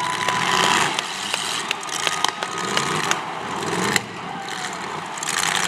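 Demolition derby cars running in the arena, with engines going and scattered short knocks and crunches of metal as they hit one another.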